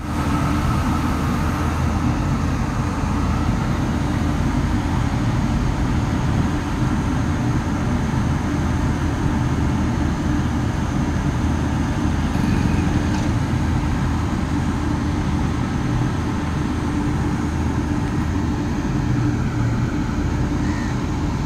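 Train in motion: a steady low rumble and hum without a break.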